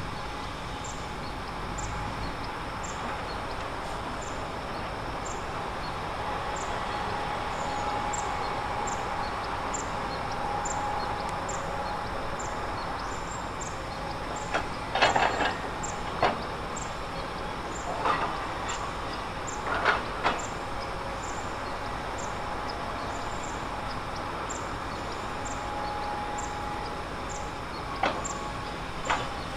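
Heavy earthmoving machinery running steadily, with a series of sharp knocks about halfway through and two more near the end.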